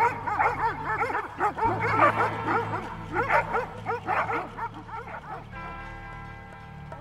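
Livestock guardian dogs barking in quick, overlapping barks at a strange dog, over background music. The barking stops about five and a half seconds in, leaving only the music.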